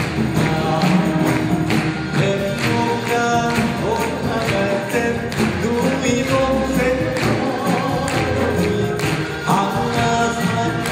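A Korean traditional orchestra (gugak orchestra) of zithers, flutes and percussion playing, with a male folk singer singing over it through a microphone.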